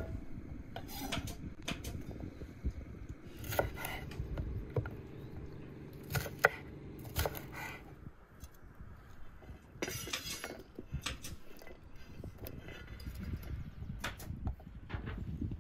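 Chef's knife knocking and scraping on a wooden cutting board and a white enamel bowl as carrots are pushed into the bowl and green peppers are sliced; irregular, separate knocks and taps.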